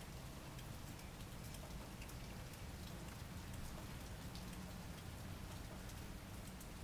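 Steady, faint rain falling, with many small raindrops ticking.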